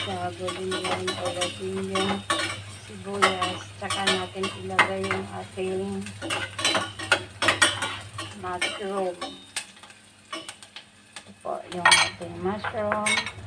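A spatula scraping and clicking against a stainless steel saucepan as garlic and onions are stirred and fried in a little oil, with light sizzling. The stirring eases off about two-thirds of the way through, then sharp taps on the pan come near the end.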